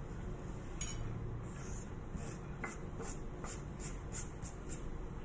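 Gloved hand scraping chopped parsley off a wooden cutting board onto a plate: a light knock about a second in, then a run of short, soft scraping strokes, about two to three a second.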